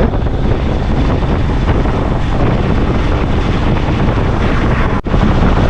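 Wind rushing over the microphone with steady vehicle and road noise while riding at speed. There is a brief dropout about five seconds in.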